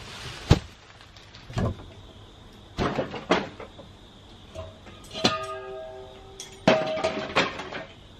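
Boards and stored items being handled and knocked about: a string of separate wooden knocks and clunks. Two of them, about five and seven seconds in, ring on briefly with a clear tone.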